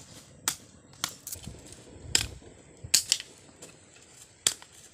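Open wood fire under a cooking pot crackling, with about seven sharp pops at uneven intervals.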